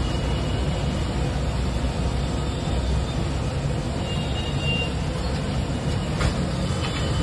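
Road traffic passing close by: motorbikes and cars running as a steady, low rumble.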